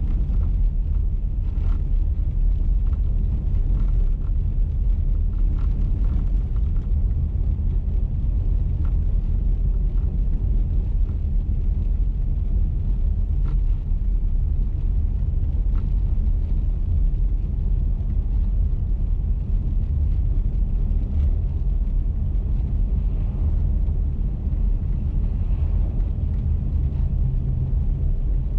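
Steady low rumble of a car driving along a snow-covered highway: engine and tyre road noise, even throughout.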